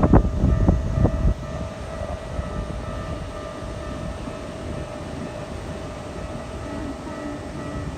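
A Keikyu train finishes passing over the level crossing with a low rumble and wheel clacks that stop about a second in. The crossing's warning bell keeps ringing with steady tones throughout.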